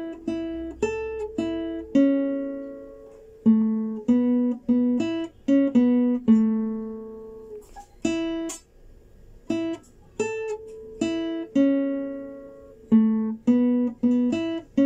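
Classical guitar playing a slow single-note melody in A minor, plucked one note at a time, each note ringing out and fading, with a few longer held notes along the way.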